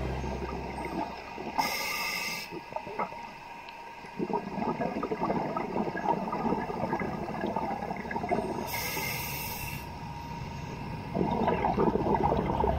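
Scuba diver breathing through an open-circuit regulator underwater. Two sharp hissing inhales come about seven seconds apart, and after each one the exhaled air rushes out as a long stretch of crackling, gurgling bubbles.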